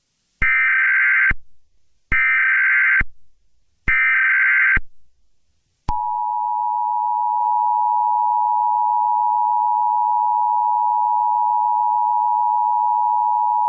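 Emergency Alert System broadcast tones: three short bursts of warbling SAME header data about a second apart, then the steady two-tone EAS attention signal, held for about eight seconds.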